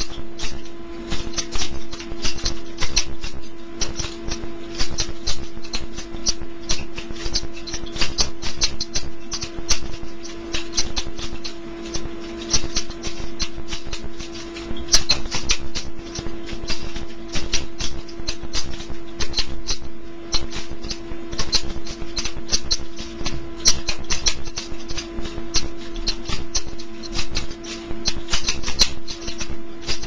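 Balisong (butterfly knife) being flipped and spun: fast, irregular clicking and clacking as the handles swing around the blade and knock together, over a steady hum.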